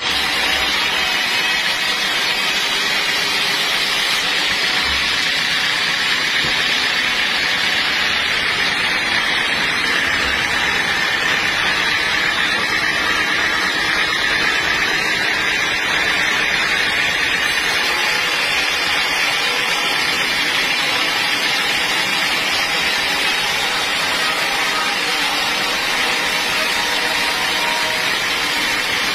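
Sawmill band saw ripping lengthwise through a large log: a loud, unbroken hissing noise of the blade cutting the wood.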